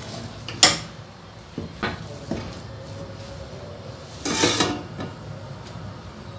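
A cooking utensil knocking and scraping against an aluminium pot as thick food is stirred and mashed in it. There is one sharp knock just over half a second in, two lighter knocks around two seconds, and a half-second scrape a little past four seconds.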